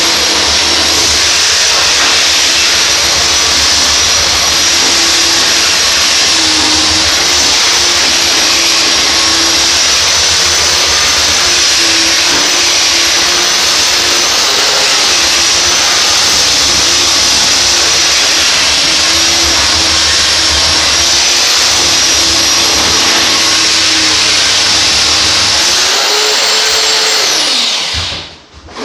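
Black & Decker BD75 600 W electric planer, fitted with sandpaper, running steadily with a loud whine while it sands wooden floorboards. Near the end its pitch rises briefly, then it is switched off and winds down to a stop.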